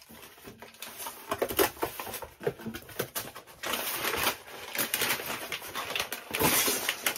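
Cardboard box being opened and rummaged through, flaps and packing rustling in irregular bursts, then a large plastic cat-food bag crinkling as it is pulled out, loudest near the end.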